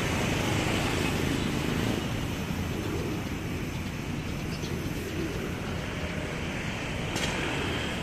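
Steady low outdoor rumble of city traffic mixed with wind buffeting the microphone, with a short click about seven seconds in.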